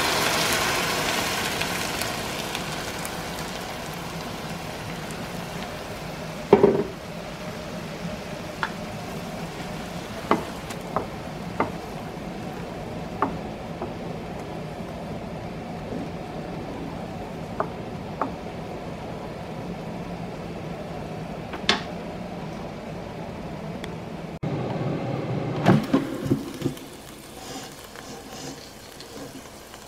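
Blended green salsa poured into a hot pan of frying onions, sizzling loudly at first and settling into a steady simmering hiss. A wooden spoon stirs and taps the pan now and then, and there are a few louder knocks near the end.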